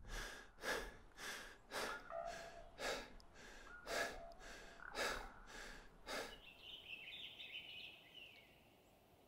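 Footsteps on short, dry meadow grass at a steady walking pace, about two steps a second, stopping about six seconds in. A bird then chirps a few times.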